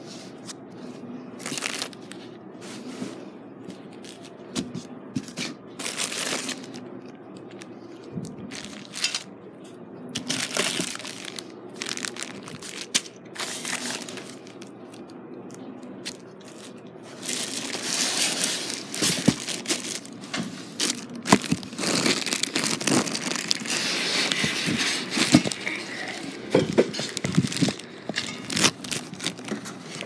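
Plastic wrapping crinkling and tearing while ceiling fan parts are handled and unwrapped, in scattered rustles at first, then dense and louder through the second half.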